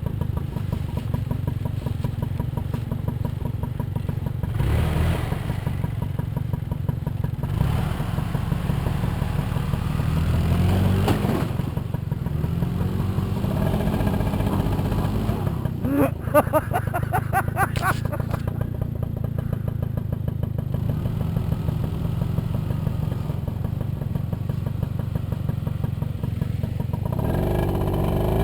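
Moped scooter engine running as it is ridden over a dirt trail, the revs rising and falling several times.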